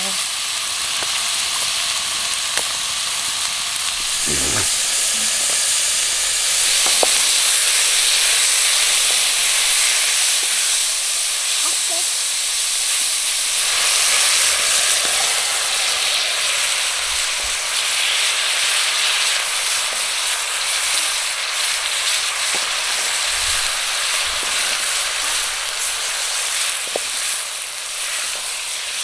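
Food frying in a pan: a steady sizzling hiss with fine crackles, a little louder from about seven seconds in.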